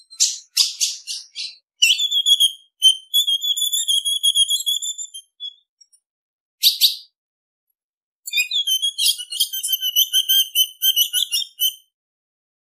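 Female ultramarine grosbeak (azulão) calling. A quick run of sharp high calls comes first, then a trilled, warbling phrase of a few seconds. A lone call follows near seven seconds, and a second trilled phrase runs from about eight to twelve seconds.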